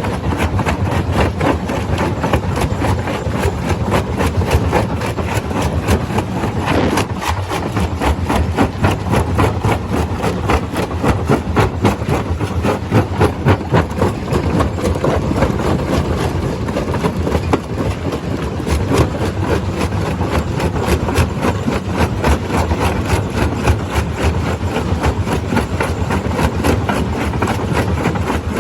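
Stone crusher running, a dense continuous clatter of rock over a steady low machine hum, with a brief falling tone about seven seconds in.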